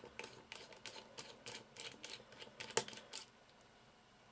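Light, irregular clicks and ticks of a small Torx screwdriver working the back screws out of a BlackBerry Curve 8520's plastic frame, a few a second, dying away about three seconds in.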